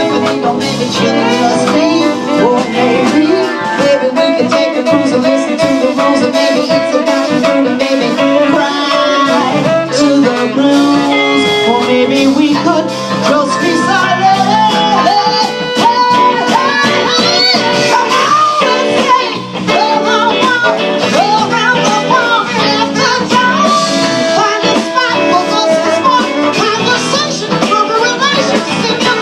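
A live band playing, with guitar and a wavering, sliding lead melody over sustained chords.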